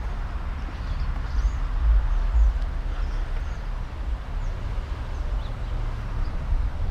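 A steady low rumble with a few faint, brief bird chirps above it.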